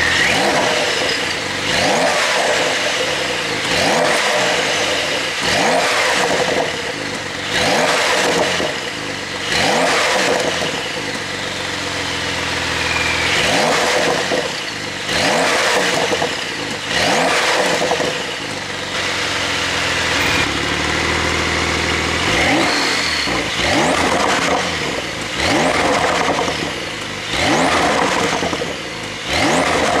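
Porsche 911 (992) Carrera's twin-turbo flat-six engine revved repeatedly in quick blips through its exhaust, about one every two seconds, each rising and falling back, with a longer held rev about halfway through.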